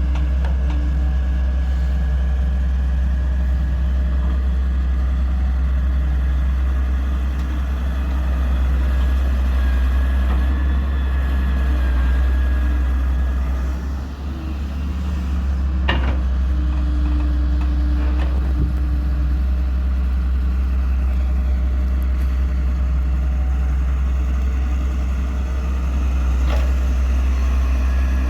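Heavy diesel engine of earth-moving machinery running steadily, with a few sharp metallic knocks, the loudest just past halfway.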